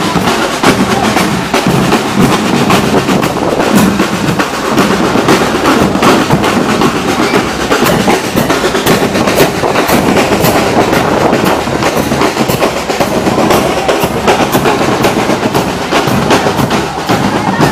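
Marching-band drum corps (fanfarra) playing: snare and bass drums beating a continuous marching rhythm.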